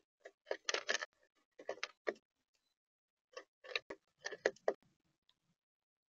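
Light taps and clicks on a bird feeder, coming in irregular clusters with short silent gaps between them.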